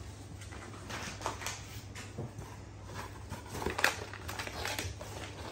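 Plastic treat pouches crinkling and rustling as they are handled in a cardboard box, with scattered light knocks, the loudest about four seconds in, over a steady low hum.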